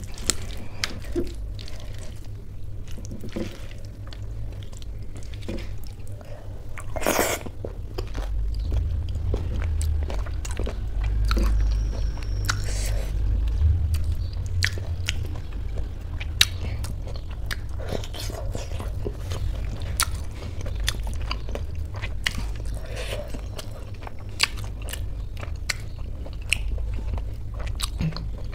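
Close-miked chewing and biting of soft khichdi with some crisp crunches, and many short wet clicks and smacks of the mouth.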